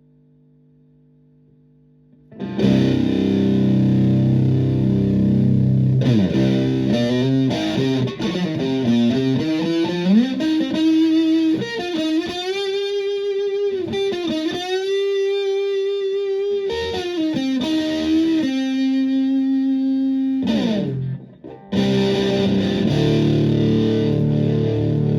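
Electric guitar through a modified Violet Ram's Head Big Muff fuzz pedal, its second diode pair switched to asymmetrical germanium clipping. A faint held note gives way about two and a half seconds in to loud fuzzed chords, then a single-note lead with string bends and vibrato, one long sustained note, a brief break and more chords near the end.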